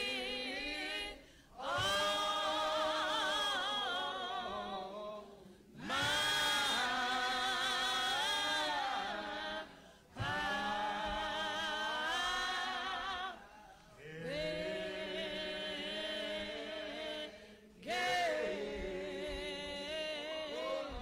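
Voices singing a slow hymn without accompaniment, in long drawn-out phrases of a few seconds each with short pauses for breath between them.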